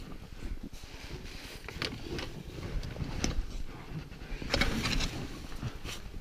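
Snow crunching and scraping against a helmet-mounted camera and clothing as it moves along the crevasse wall, over a low rumble of handling noise, with a louder burst of scraping about four and a half seconds in.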